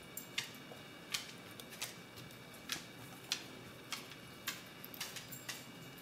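Combination dial wheels of a Master Lock real-estate key box clicking as they are turned step by step by finger: sharp single clicks at uneven spacing, about one or two a second. The dials are being decoded by feeling for the notch on the side of each wheel.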